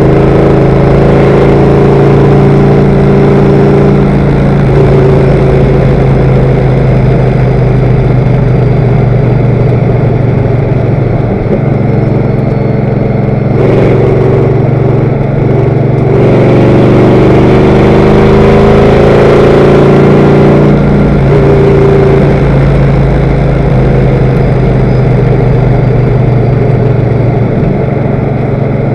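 Race car engine running hard at high revs, heard from inside the car and very loud. The engine note sags slightly partway through, then climbs again about 16 seconds in, with extra rushing noise for several seconds.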